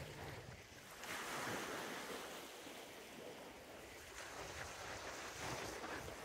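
Small waves breaking and washing over a stony shoreline, swelling about a second in, with wind rumbling on the microphone.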